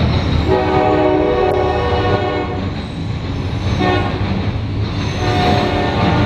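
Horn of a passing CSX freight locomotive sounding a long blast, a short blast and then another longer blast, over the low rumble of the grain train rolling by.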